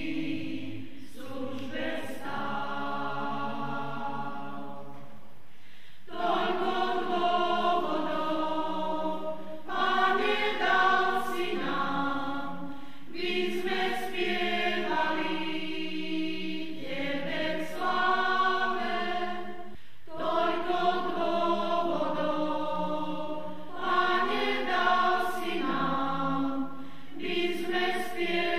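Mixed choir singing in parts, in phrases of a few seconds with short breaks between them.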